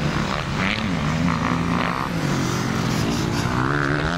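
Motocross bike engines revving on the track, their pitch rising and falling with the throttle, with a rising rev near the end.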